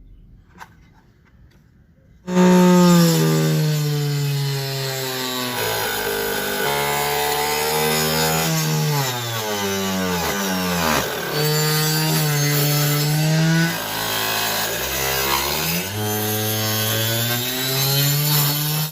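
Electric power tool working wood: its motor starts about two seconds in and runs loudly, the pitch sagging and recovering several times as it bogs down under the load of the cut, deepest about ten seconds in. It cuts off abruptly.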